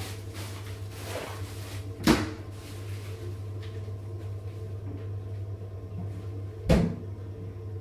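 Two short, sharp knocks about four and a half seconds apart, over a steady low hum.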